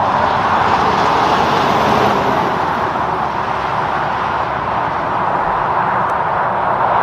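Steady highway traffic noise: tyres of passing cars hissing on the road surface, with a garbage truck's diesel engine running low underneath.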